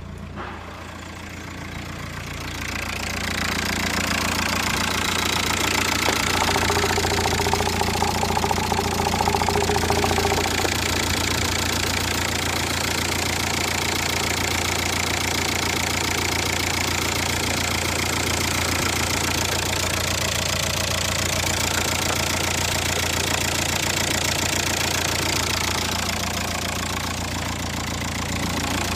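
Volkswagen 1.9 TDI AUY diesel engine idling steadily, quieter for the first few seconds and louder from about three seconds in.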